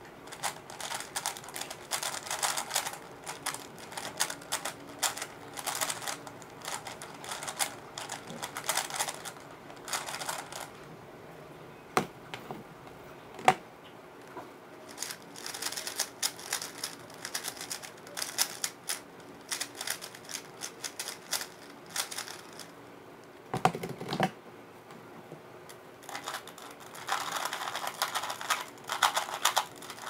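Plastic 3x3 speed cube being turned fast by hand, its layers clicking and clattering in quick runs. Two short pauses, each broken by a few single louder knocks.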